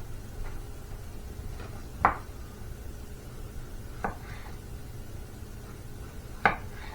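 Kitchen clatter: a few sharp, scattered knocks of utensils or cookware, the loudest about two seconds in and near the end, over a low steady hum.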